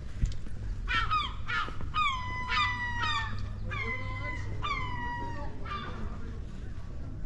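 A gull calling: a run of about nine calls, each sliding down in pitch, from about a second in until about six seconds in.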